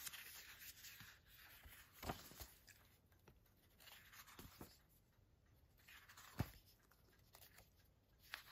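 Faint rustling of a paper booklet being handled and its pages turned, with a few brief soft taps, the sharpest about six seconds in.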